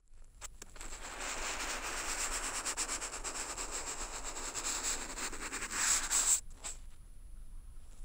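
A handmade brush of dried plant stems drags across paper in one long ink stroke, a dry scraping rub picked up through contact microphones fixed to the sheet. It swells near the end and stops suddenly after about six seconds, followed by a few faint taps.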